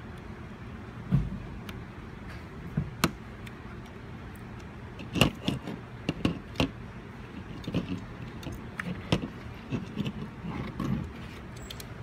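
Scattered small clicks, taps and light rattles of hands working on an open mini PC's motherboard and handling its small parts, over a steady low hum.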